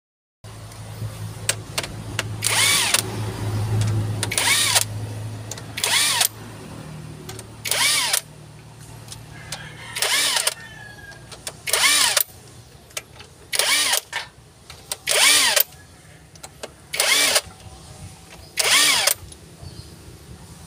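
Cordless impact driver run in about nine short bursts, each about half a second long and roughly two seconds apart, pitch rising then falling each time, as it works the camshaft bearing-cap bolts one by one on a Toyota Fortuner gasoline engine being torn down. A low steady hum runs under the first half, then fades.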